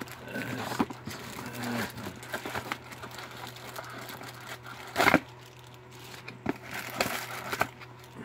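Clear plastic knife sleeves and wrapping crinkling as knives are handled and pulled out of a cardboard box, with scattered small clicks. A sharp knock about five seconds in is the loudest sound.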